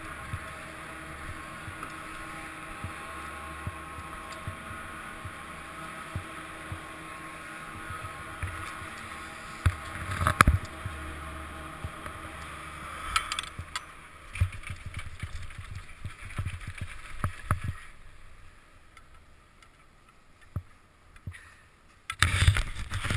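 Chairlift terminal machinery running with a steady hum and scattered clicks. About ten seconds in comes a loud knock as the chair takes the skier. The hum then fades to occasional knocks and creaks, and a burst of noise comes near the end.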